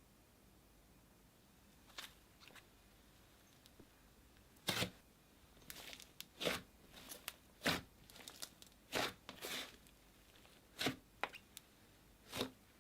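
Slime being handled and pressed: faint, short crunchy crackles and squishes, about a dozen at irregular intervals, starting about two seconds in.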